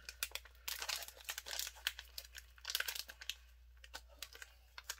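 Foil booster-pack wrapper crinkling and rustling in irregular bursts as hands try to tear the trading-card pack open, dying down near the end.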